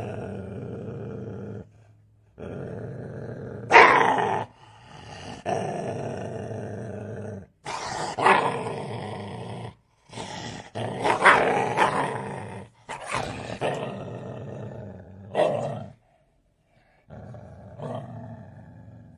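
Dog growling in several short stretches separated by brief gaps, broken by sudden loud barks about four seconds in, then near eight, eleven and fifteen seconds.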